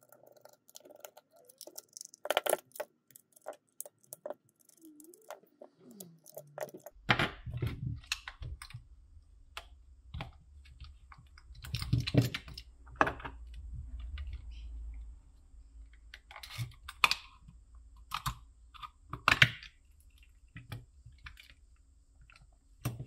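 Scattered clicks and taps of hard plastic: small screws being backed out of a digital luggage scale's plastic case with a precision screwdriver, then the case handled and its two plastic shell halves pulled apart near the end.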